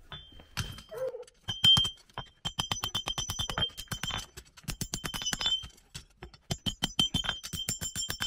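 Hand hammer striking a red-hot front horseshoe held in tongs on a steel anvil: quick runs of ringing blows, several a second, broken by short pauses as the blacksmith shapes the shoe.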